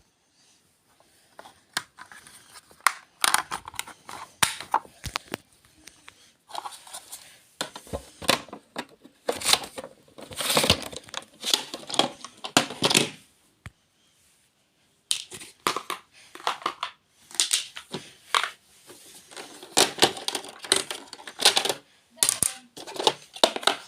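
Crinkly material being handled: irregular crackling and rustling in short bursts with brief pauses, dropping out entirely for about a second midway.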